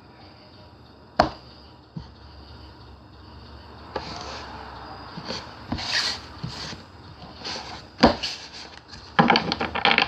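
A deck of Rider-Waite tarot cards being shuffled by hand: the cards rub and slide against each other, with a few sharp taps and a quick run of crackling clicks near the end.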